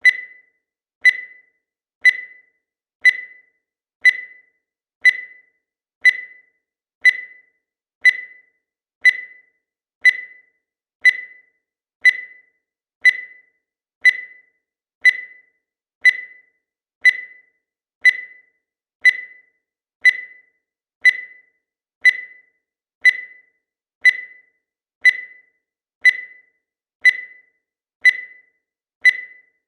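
Digital countdown timer beeping once a second, marking each second as the number changes. Each beep is a short, high single tone that dies away quickly, evenly spaced throughout.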